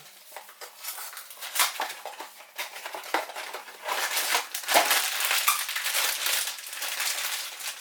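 Funko Mystery Mini blind-box packaging being opened by hand: irregular crinkling and crackling of the box and its wrapper as the figure is unwrapped.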